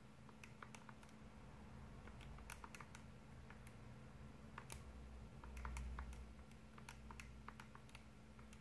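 Faint, irregular clicking of keys being pressed, about three a second, as numbers are keyed in to work out values, over a low steady hum; a soft low rumble rises and fades about halfway through.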